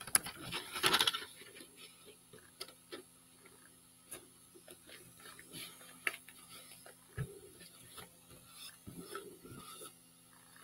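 Tissue paper rustling loudly for about the first second as a sheet is laid over a box, then faint rubbing and light ticks as hands smooth it down onto wet decoupage medium. A low steady hum runs underneath.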